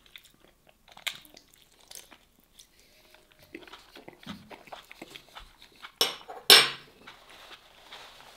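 Close-miked eating sounds of a man biting and chewing a soft grilled tomato, with small wet clicks. About six seconds in come two short, loud mouth sounds in quick succession.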